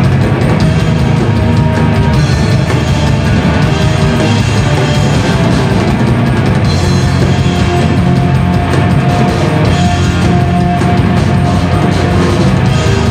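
Live recording of a heavy rock band, with hard-hitting drum kit and bass guitar, playing loud and dense. The audio quality is rough rather than pristine.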